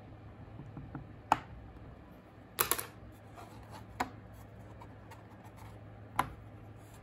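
Sharp taps and knocks of clay pieces and a hand tool against a plastic craft tray: one about a second in, a short clatter a little later, then single taps near four and six seconds.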